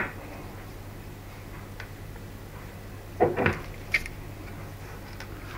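Handling sounds of a small model glow engine and its metal parts in gloved hands: a short clatter a little past three seconds in and a light click about a second later, over a faint steady hum.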